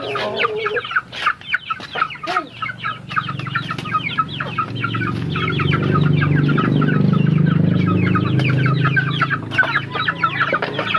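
A flock of Rhode Island Red and native chickens clucking rapidly and continuously, the calls of hungry birds waiting for feed. A low steady hum swells through the middle and fades near the end.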